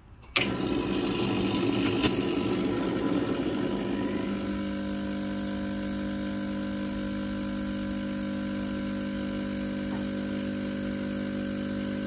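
Milesto Elaine M3 espresso machine's pump switching on abruptly for a shot, running as a rough buzzing hum at first, then settling into a steady, even hum from about four seconds in while the coffee has only just started to drip from the spout.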